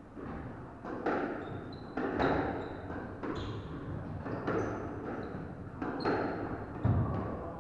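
Squash rally: the rubber ball cracking off racquet strings and the court walls, about ten sharp hits spaced half a second to a second apart, each ringing briefly in the hard-walled court. Brief high squeaks of court shoes on the wooden floor fall between the hits.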